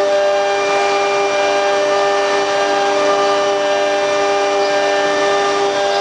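QS6090 CNC router running steadily, its spindle giving a high, even whine of several steady tones over a hiss.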